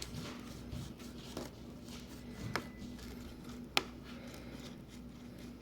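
Faint scraping of a thin pry tool being sawed back and forth under an iPad mini's backlight to cut the adhesive tape, with two sharp clicks about two and a half and nearly four seconds in, over a steady low hum.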